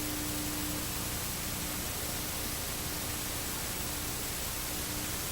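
Steady static hiss, like white noise from an untuned TV, with a faint steady hum underneath.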